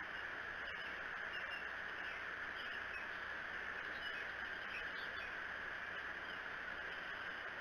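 Faint, scattered bird chirps over a steady outdoor hiss.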